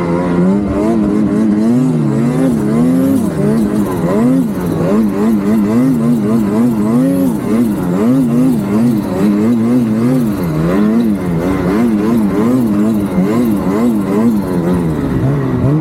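Turbocharged engine running under changing throttle, its pitch rising and falling over and over, about once a second.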